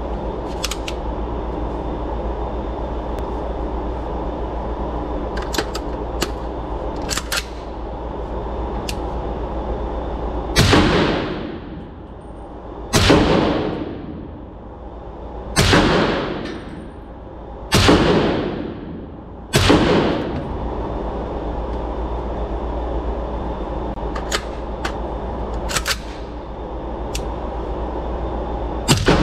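Suppressed Noveske Ghetto Blaster rifle in .300 Blackout firing five supersonic 147-grain rounds, about two to three seconds apart, each report echoing off the walls of an indoor range. Quieter sharp cracks come before and after the string, over a steady drone.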